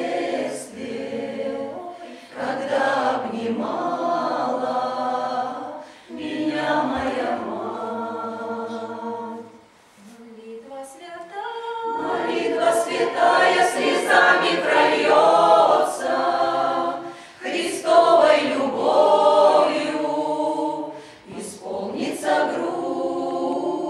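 Mixed folk choir of women's and men's voices singing a Russian song in harmony, phrase by phrase, with short breaths between phrases and a longer pause about ten seconds in.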